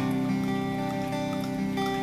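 Instrumental background music led by a guitar, its held chords changing about as it begins and again near the end.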